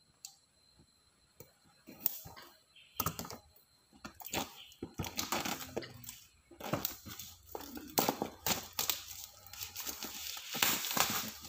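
Plastic shrink wrap being torn and peeled off a phone's retail box, crinkling and crackling irregularly. It starts about two seconds in and is busiest in the second half.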